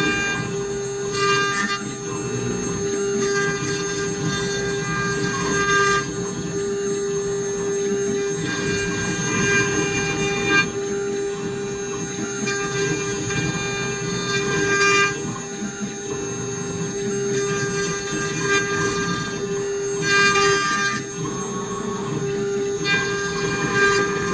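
CNC router spindle running with a steady whine while its bit cuts a wooden blank turning in the rotary-axis chuck. The higher tones above the whine change every few seconds as the cut goes on.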